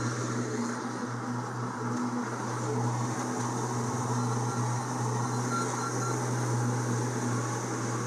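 Diesel engine of a tracked skid steer running steadily as it works at a hay trailer, a low drone that grows a little louder in the middle as the machine comes closer.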